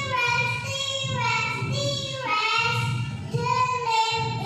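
A child singing a melody in held notes.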